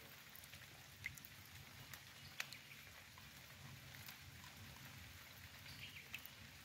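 Near silence with faint rain: a light, even hiss and a few single drops ticking, about a second in, again at about two and a half seconds, and near the end.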